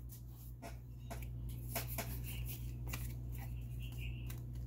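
Yu-Gi-Oh! trading cards being handled and slid one over another, giving a string of short flicks and clicks at an uneven pace.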